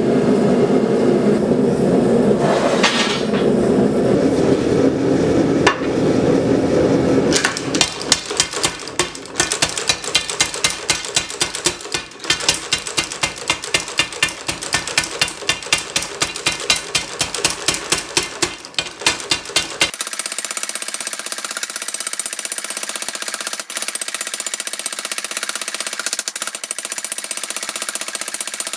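A steady roar, then from about seven seconds in rapid, evenly spaced hammer blows on the hot tool-steel drill rod as its end is forged to a point. From about twenty seconds in the strikes turn into a faster, thinner, even ticking.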